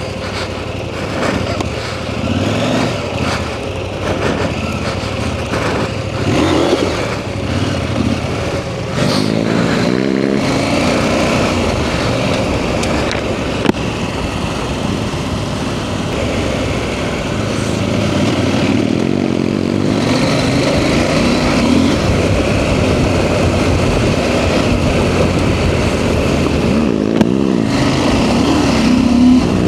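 KTM 890 Adventure R's parallel-twin engine running under a rider at trail speed. The revs rise and fall with the throttle, with a few quick rises about a third of the way in and again near the end.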